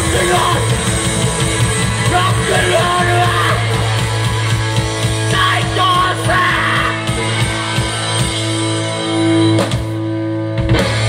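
Live rock band playing loud: electric guitar, bass and drums, with a singer yelling into a microphone. About nine seconds in the drumming stops and a held chord rings on.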